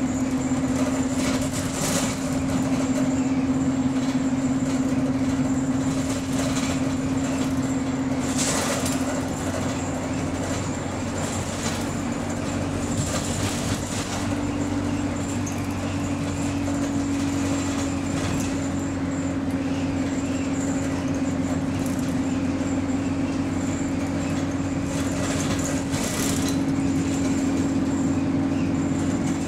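Diesel engine of a double-decker bus running under way, heard from inside the passenger saloon: a steady drone that rises and falls slightly in pitch, with a few short knocks and rattles from the body.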